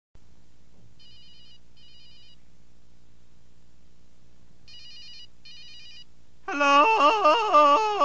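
Telephone ringing with a warbling double ring, heard twice a few seconds apart. About six and a half seconds in, a loud voice with a high, sliding pitch begins.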